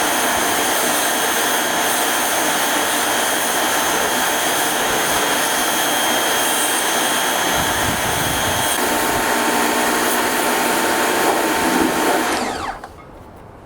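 Pressure washer running and spraying, a steady loud hiss with a motor's hum. About twelve and a half seconds in it shuts off and the motor winds down.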